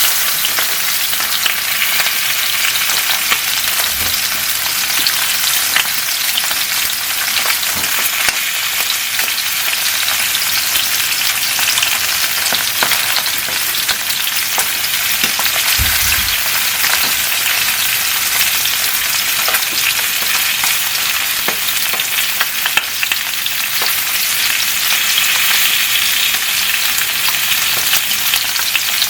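Flounder pan-frying in oil: a steady, dense sizzle of fine crackles and pops.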